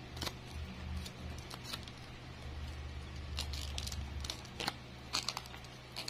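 Scattered light clicks, taps and short rustles as stems and leaves of handmade plastic-bag hibiscus flowers are handled and gathered together, over a low steady hum.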